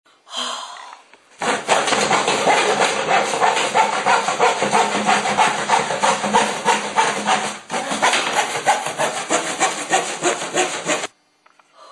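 Handsaw cutting through a thin wooden board with quick back-and-forth strokes. It starts a little over a second in, breaks off briefly about two-thirds of the way through, then carries on and stops shortly before the end.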